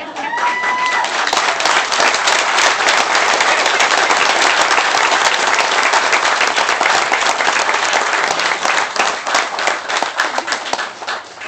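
A crowd of guests clapping steadily, dying away near the end. A brief whistle, rising then held, sounds in the first second.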